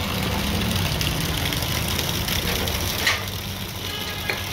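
Steady outdoor noise on a waterlogged street: a hiss over a low rumble, with a short tick about three seconds in and another near the end.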